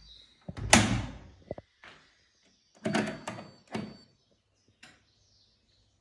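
The front-loading door of a Candy washing machine is swung shut with a loud thunk about a second in. A few more knocks and clicks follow around three to four seconds in.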